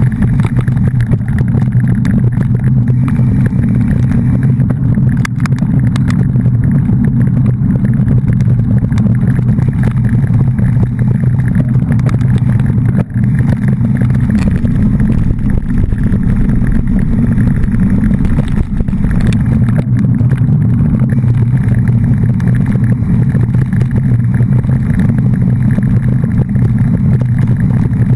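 Steady low rumble of a moving vehicle, engine and road noise running evenly, with a brief dip about thirteen seconds in.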